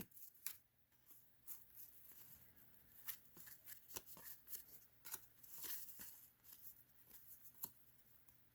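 Faint, scattered ticks and rustles of cardboard trading cards being handled and slid against one another, heavier in the middle of the stretch.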